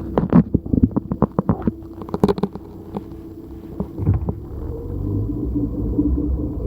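Car engine on a hard start: the starter cranks it over at about four compressions a second, then the engine catches about four seconds in and runs with a low rumble that grows louder.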